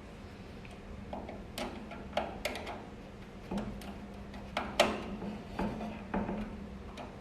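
Irregular clicks and light metallic knocks from handling the oven's metal parts and wiring during reassembly. The loudest knock comes a little before the five-second mark, over a faint steady hum.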